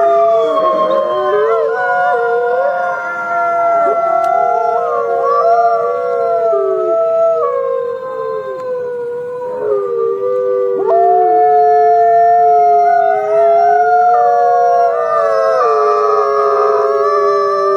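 Wolves howling in chorus: several long, overlapping howls held at different pitches, each rising and falling slowly.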